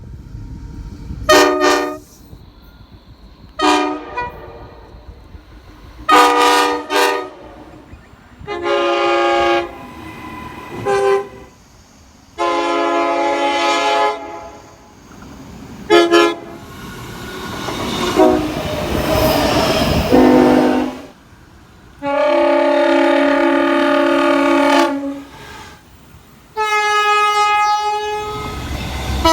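Train horns sounding a series of separate blasts, some short toots and some held for two to three seconds, in several different chords. Around the middle, a stretch of broad noise builds up and fades away.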